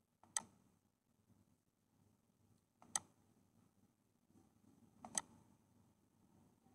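Three sharp computer mouse clicks, about two and a half seconds apart, each stepping the simulator forward a day; otherwise near silence.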